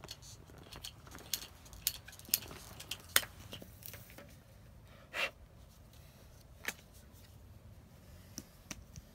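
Scattered light clicks and knocks of white plastic water pipe and fittings being handled at a socket-fusion pipe welder, with a short scrape about five seconds in.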